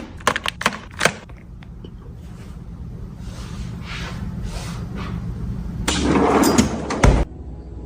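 Objects being handled in a refrigerator: a few sharp clicks, a stretch of soft rustling over a low hum, then a louder rattle about six seconds in that ends in a thump, like a drawer or door closing.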